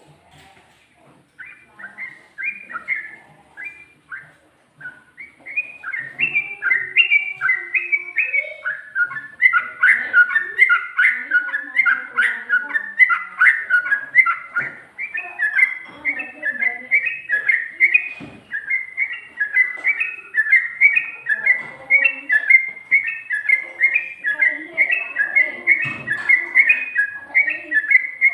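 Yellow-vented bulbul (trucukan) singing a long, rapid song of short repeated whistled notes, faint and broken at first, then a continuous fast run from about five seconds in.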